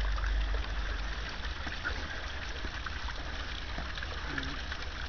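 Wind rumbling on the camera microphone over a steady hiss, with a few faint scuffs and taps from the sparring.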